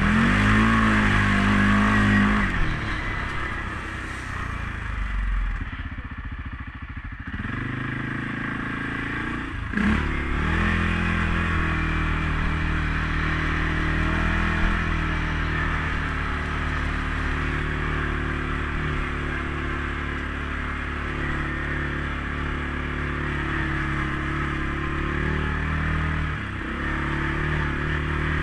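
CFMOTO CForce 500S ATV's single-cylinder engine running under way: it revs up at the start, eases off for a few seconds, then pulls steadily over a constant hiss. There is a sharp knock about ten seconds in.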